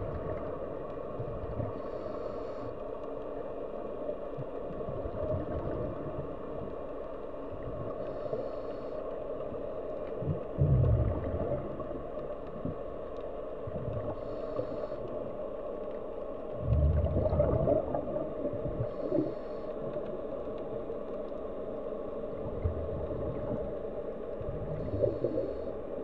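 Scuba diver breathing through a regulator, heard underwater: a short hiss of inhalation about every six seconds, and between breaths low bubbling rushes of exhaled air, the loudest about ten and seventeen seconds in, over a steady underwater noise.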